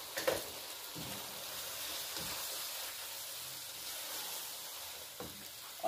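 Parboiled whole masoor lentils sizzling as they go into hot oil and tomato masala in a pan: a steady frying hiss, with a light knock just after the start and another near the end.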